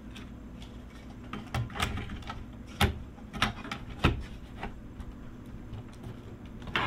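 Metal top cover of a Lenovo M720Q mini PC being slid and pressed down onto the chassis by hand, giving a run of irregular clicks and knocks. The cover does not seat fully because the newly fitted fan shroud underneath sits too high.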